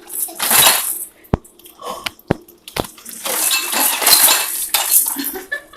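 Tableware being handled: a few sharp clinks and knocks of plates and utensils, between stretches of rustling handling noise.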